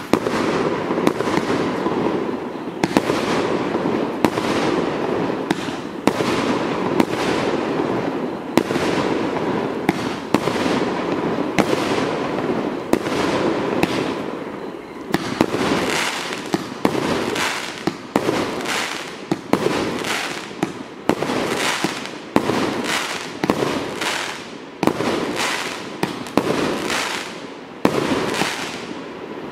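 A 138-shot consumer fireworks cake with 1.2-inch tubes firing shot after shot: sharp launch and burst reports about once or twice a second, with a continuous crackling hiss between them.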